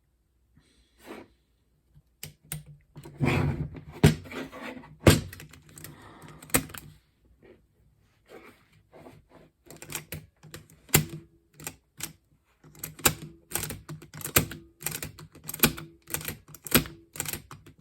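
Irregular clicks and clacks of small mechanical parts being worked by hand, from the Macintosh 128K external floppy drive's eject mechanism under repair. Sparse at first, then a cluster of louder knocks, a short pause, and denser clicking through the second half.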